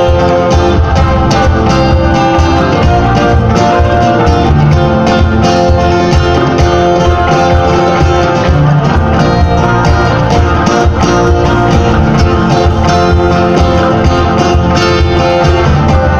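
A live band playing: plucked sape and guitar over bass guitar and djembe, with a steady beat.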